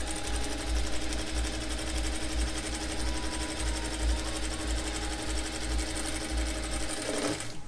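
Jack F4 industrial lockstitch sewing machine running steadily while stitching a seam in cotton fabric, with a rapid, even stitching rhythm; it stops near the end. It is sewing cleanly with a freshly fitted size 18 needle.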